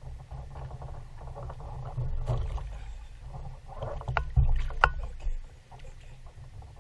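Channel catfish splashing in the water beside a kayak as it is held at the surface. Several sharp splashes and knocks, loudest about four to five seconds in, over a steady low rumble.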